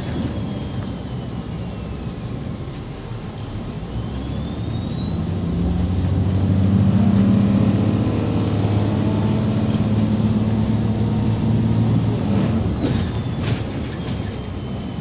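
Inside a MAZ 203.065 city bus: the engine pulls away and runs for several seconds with a high drivetrain whine that climbs with speed, holds steady, then falls away as the bus slows. A few clicks and rattles come near the end.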